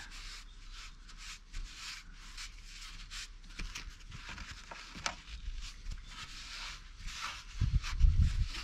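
Felt carpet lining being rubbed and pressed down by hand onto a van panel: a run of short, scratchy brushing strokes, with a heavier low thump near the end.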